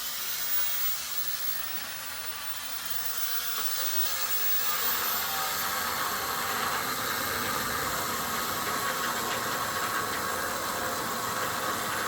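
Angle grinder with a cut-off wheel cutting through steel, throwing sparks: a steady grinding hiss under a thin high whine that drops a little in pitch about five seconds in as the wheel takes the load.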